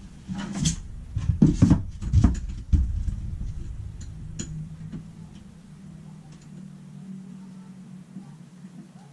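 A few sharp knocks and clatters of objects being handled in the first three seconds, then a faint, low, steady hum.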